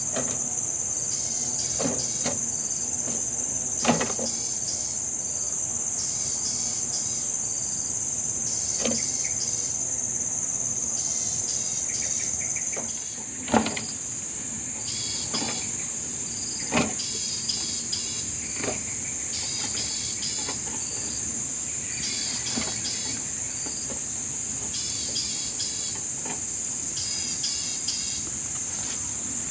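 Steady high insect chorus with short chirping trills that repeat every second or two, broken by a few sharp clicks, the loudest about thirteen and a half seconds in.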